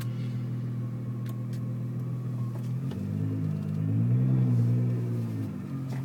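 Nissan GT-R R35's twin-turbo V6 through a catless, non-resonated Meisterschaft exhaust, heard from inside the cabin with the windows up: a steady low drone, then from about halfway the pitch wavers up and down and the sound swells with throttle before settling back near the end.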